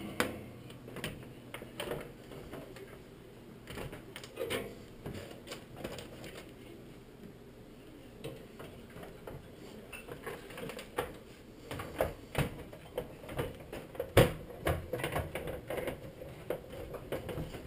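Scattered plastic clicks and taps from the microwave's door and control-panel parts being handled and fitted back into place, sparse at first and coming more often in the second half, with one sharper knock about two thirds of the way through.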